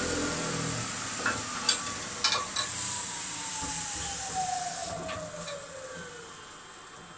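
Wood lathe coasting to a stop after being switched off, its motor whine falling slowly in pitch over about six seconds. A few light knocks come about one to three seconds in as the workpiece is released from between centres.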